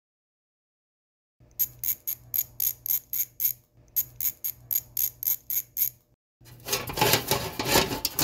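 A hand screwdriver turning the screws on a rooftop air conditioner's electrical box, giving two quick runs of ringing metallic clicks, about five a second. Near the end comes a louder rustling scrape as the box is handled and lifted.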